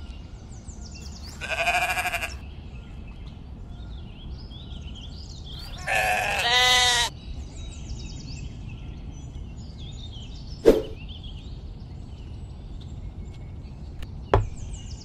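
Sheep bleating twice, each bleat about a second long and a few seconds apart, followed later by two sharp knocks.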